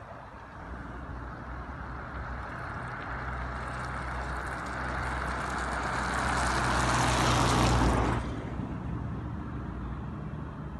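A wide-load escort car drives past close by, its tyre and engine noise rising as it nears and dropping off sharply about eight seconds in. Under it runs the low engine drone of the oncoming truck hauling the oversize load.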